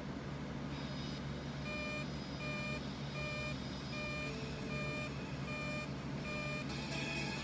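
Weatherscan's severe-weather warning beeps coming through a TV speaker: a run of about seven short pitched beeps, one every 0.7 seconds or so, over a steady low hum. Background music comes in near the end.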